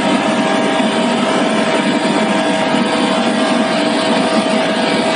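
Coal and gas dual-use industrial burner firing: a loud, steady roar of flame and forced air, with a constant whine held throughout.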